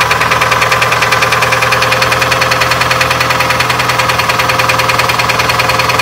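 Toyota 2AZ 2.4-litre four-cylinder engine running with a fast, steady, rhythmic knocking from the bottom end. This is rod knock: worn connecting-rod bearings leave too much clearance on the crankshaft.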